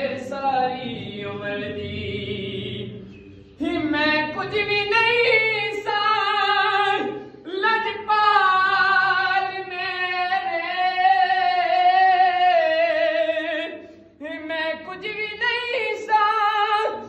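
A man singing a devotional Punjabi song unaccompanied in a high, full voice. He holds long, wavering notes, with short breaks for breath.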